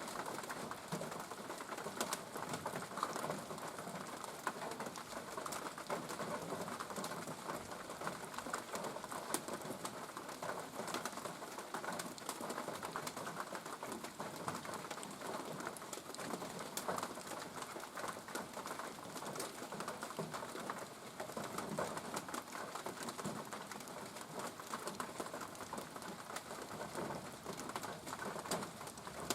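Steady rain falling, an even rushing hiss with scattered sharp drips and taps.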